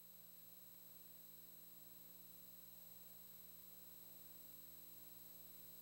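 Near silence, with only a faint steady hum and hiss.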